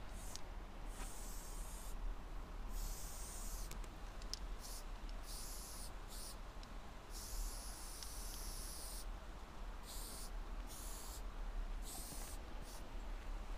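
Aerosol spray-paint can hissing faintly in many short bursts, from a quick tap to about a second and a half, over a low steady hum.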